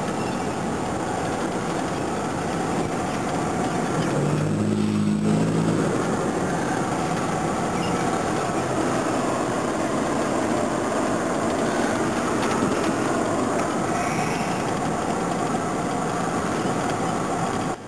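Steady road and engine noise inside the cabin of a moving patrol car, with a short low tone that steps upward about four seconds in.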